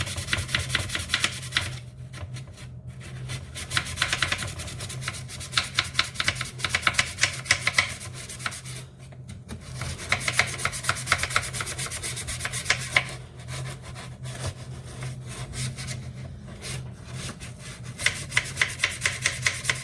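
A toothbrush scrubbing stained plastic trim with bleach and cleaning powder, in rapid back-and-forth strokes that stop briefly a few times. A steady low hum runs underneath.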